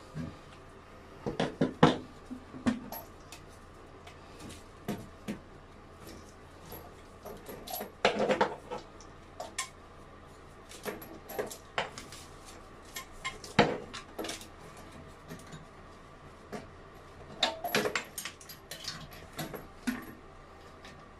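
Intermittent clinks, clacks and knocks of hard plumbing parts and tools being handled during toilet fitting work, coming in bunches with the loudest about 2 s, 8 s, 13.5 s and 18 s in.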